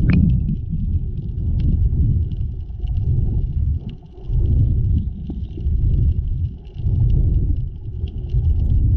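Muffled low rumble of water moving against the waterproof action camera while snorkeling, swelling and fading about once a second. A faint steady crackle of small clicks sits above it, and a short falling squeak comes right at the start.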